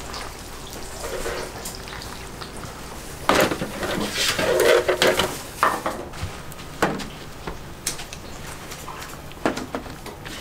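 Kitchen utensils and dishes clattering: scattered sharp clinks and knocks, the loudest cluster about three to five seconds in.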